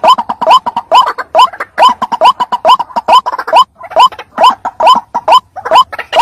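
White-breasted waterhen (ruak-ruak) calling over and over: loud, short, upward-sliding 'kruak' notes repeated about two to three times a second in a steady rhythm, a recording of the kind played as a lure call for trapping the bird.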